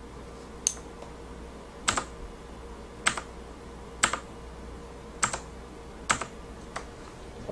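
Seven single key presses on a mechanical keyboard with clicky Kailh Blue switches, about one a second, each a sharp click, over a faint steady hum.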